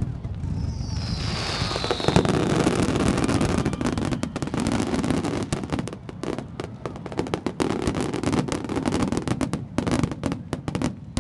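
Fireworks display: a falling whistle near the start, then many crackling pops and bangs in quick succession over a low rumble, thinning out near the end.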